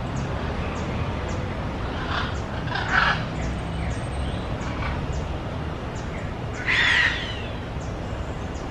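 A parrot giving harsh squawks: two short ones about two to three seconds in, then a louder, longer one near seven seconds.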